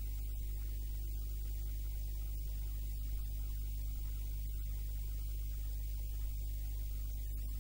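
Steady electrical mains hum: a low 50 Hz buzz with its overtones, under a faint hiss.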